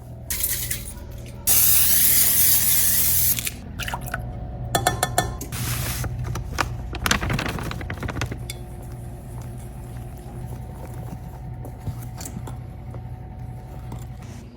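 Aerosol can of nonstick cooking spray hissing in one burst of about two seconds, greasing the baking pan. It is followed by scattered clicks and clatters of kitchenware being handled, with a quick run of ticks about five seconds in.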